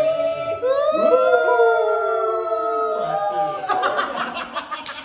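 Several men's voices shrieking in long, high-pitched held wails that slide up and down in pitch, followed about three and a half seconds in by laughter and quick hand claps.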